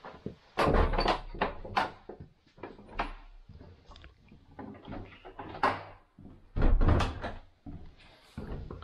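A door being unlocked and opened: scattered clicks and knocks of key, latch and handle, with two heavy thuds, one about a second in and another about seven seconds in.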